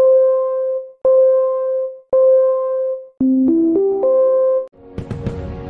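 Electronic keyboard tone sounding the same note about once a second, four times, then a quick run of rising notes that lands back on it. Near the end a crackling fireworks sound effect with sharp pops sets in under the music.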